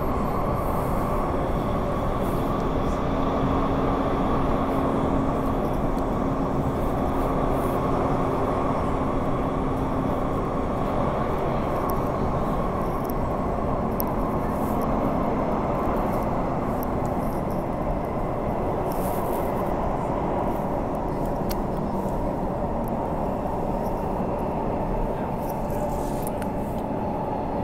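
Inside a Bombardier electric multiple-unit passenger train running between stations: steady rumble and rolling noise of the car, with a low hum that fades about ten seconds in.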